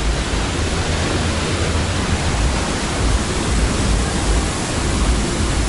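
Large waterfall's falling water: a loud, steady rush with a deep rumble underneath.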